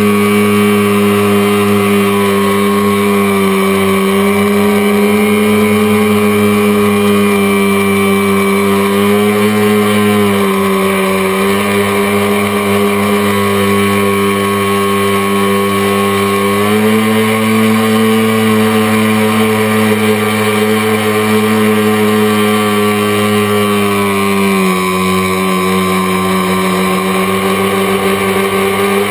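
Tricopter's electric motors and propellers running with a steady whine, heard up close from a camera mounted on the craft. The pitch steps up and down several times as the throttle changes in flight.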